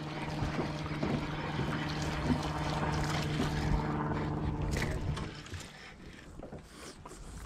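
Baitcasting reel being cranked to bring in a small hooked bass, a steady whir that stops about five seconds in as the fish is lifted clear of the water.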